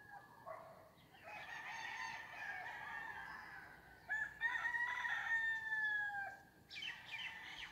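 Roosters crowing: two long drawn-out crows of about two seconds each, the second louder. Near the end come a few quick, higher bird chirps.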